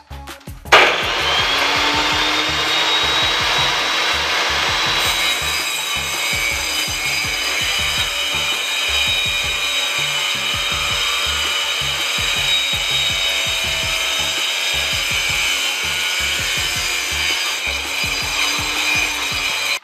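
A circular saw blade in a homemade table saw running and ripping through a laminated chipboard panel, a steady whining cut that comes in suddenly about a second in and grows brighter from about five seconds in.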